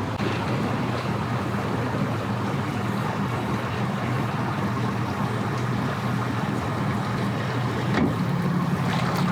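An engine idling steadily, a low even hum, with a brief knock about eight seconds in.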